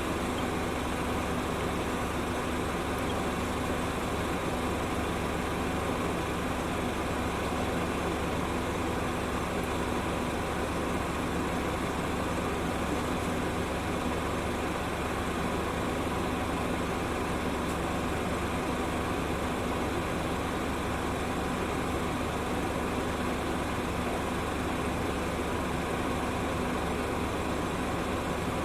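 A steady, unchanging engine-like hum, with a constant low droning tone under an even noise.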